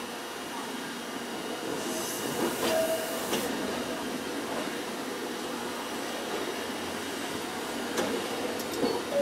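Fukui Railway 770-series tram running along street track, heard from inside the car: a steady rumble of running noise. A brief hiss comes about two seconds in, and a few sharp clicks near the end.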